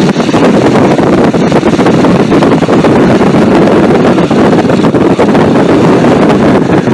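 Cockpit noise of a T-6 Harvard's Pratt & Whitney R-1340 Wasp radial engine and propeller running at taxi power as the aircraft rolls across grass, a loud, steady drone.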